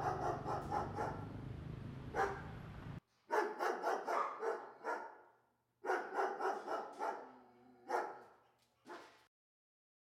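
A dog barking in quick runs of several barks. A low steady hum lies under the barks at first and cuts off suddenly about three seconds in, while the barking goes on in a few more runs that thin out near the end.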